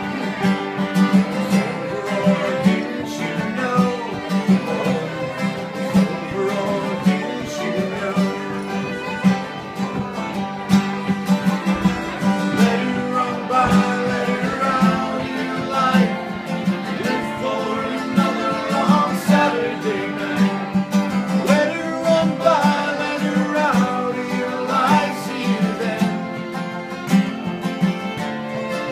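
Live acoustic string band playing a country-bluegrass song: two strummed acoustic guitars, a five-string banjo and a fiddle, with the guitarists singing.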